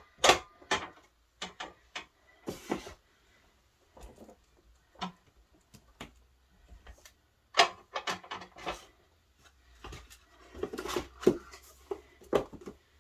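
Cut wooden boards knocking and clattering as they are handled and wedged into a bookcase opening, in irregular bursts of sharp knocks.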